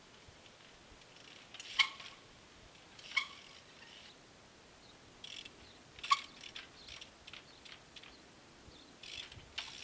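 Trials bike hopping and landing: three sharp metallic knocks, each with a short ring, spaced a second or more apart, with lighter clicks and rattles between.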